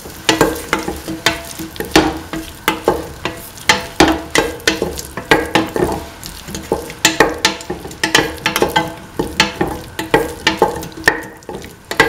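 A spatula scraping and knocking against a stainless steel pan about three times a second as tomato pieces, shallots, garlic and green chili are stirred and sautéed in oil, over a sizzle of frying.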